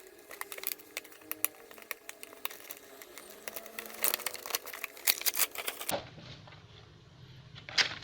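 Rapid clicks and light rattles of a plastic toy box and its packaging being opened and handled, stopping about six seconds in.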